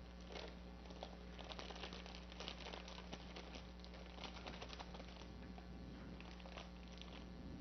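Faint, irregular ticking and crackling of millet grains being stirred in a hot pan, over a steady low electrical hum.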